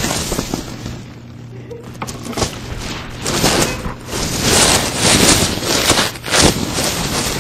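Handling noise: packaging foam rubbing and scraping over the microphone in loud, irregular bursts as the camera is jostled inside it.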